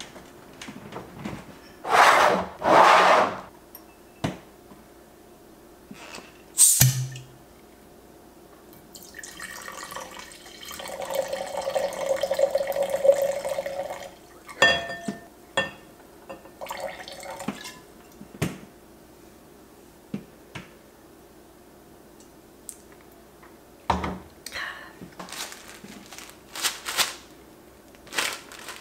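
Red wine poured from a bottle into a wine glass: a steady liquid pour lasting about four seconds in the middle, with clinks and knocks around it. Near the end, a plastic zip-top bag is handled and opened, with short rustles. Two short, loud noises sound near the start.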